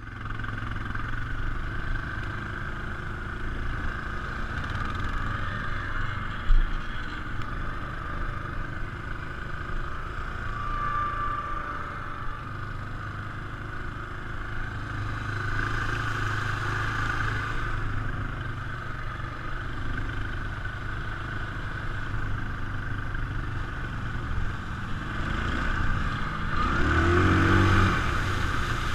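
ATV engine running steadily while riding, swelling louder as it revs near the end. There is one sharp thump about six seconds in.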